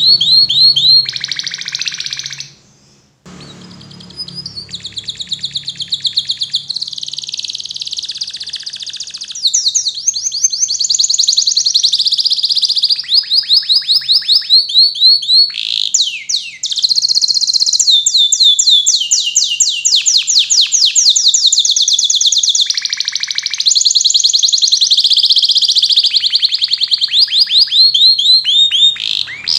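Domestic canary singing a long song of rapid trills. Each trill is a fast string of repeated high notes, and it changes to a new trill every few seconds, with a short break about three seconds in.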